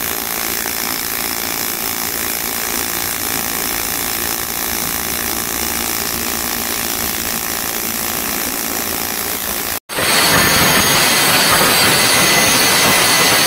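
Steady hiss of a TIG welding arc on aluminium pipe while filler rod is fed in by hand. About ten seconds in it cuts off abruptly, and a louder, steady angle grinder takes over, running against the aluminium weld bead.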